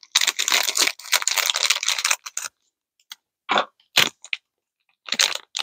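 Plastic snack wrapper crinkling as a pack of individually wrapped chewy candies is handled and opened. A dense rustle lasts about two seconds, followed by a few short, separate crackles.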